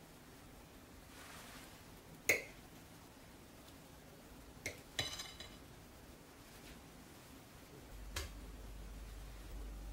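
Kitchen knife cutting soft butter on a ceramic plate, the blade clicking and clinking against the plate a few times: a sharp click about two seconds in, and two more about five seconds in, the second with a brief ring. One more tap comes near the end, as the butter is lifted over a glass mixing bowl.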